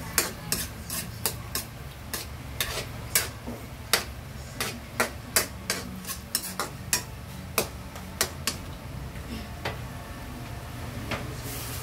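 Metal spatula stirring garlic and onions sautéing in butter in a metal wok, clinking and scraping against the pan about twice a second, then only a few clinks after about eight seconds. A steady low hum runs underneath.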